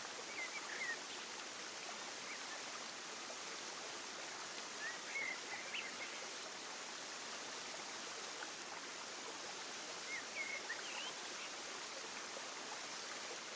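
Steady rush of flowing water, with three brief bursts of high bird chirps: near the start, about five seconds in and about ten seconds in.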